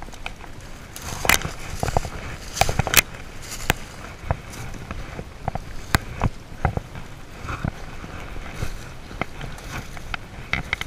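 Footsteps crunching through dry fallen leaves and twigs, with irregular crackles and snaps.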